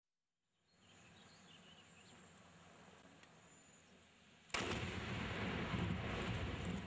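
Explosive demolition charges firing on a steel truss bridge: one sudden sharp blast about four and a half seconds in, followed by loud continuing rumble as the structure and debris come down. Before it, only faint outdoor ambience with a few bird chirps.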